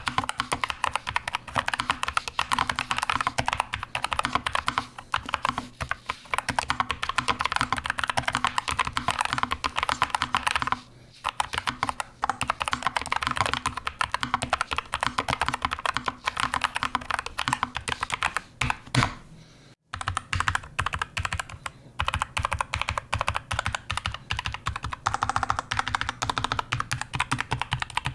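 Continuous fast typing on a NuPhy Air60 v2 low-profile mechanical keyboard, with dampening material inside: a dense run of key clacks that pauses briefly about 11 seconds in and again near 20 seconds.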